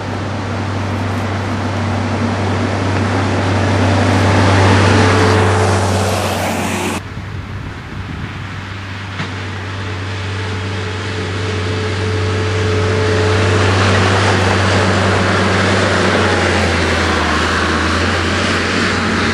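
Avant 700-series compact loader's engine running steadily as the machine drives, with a low steady hum; the sound changes abruptly about seven seconds in.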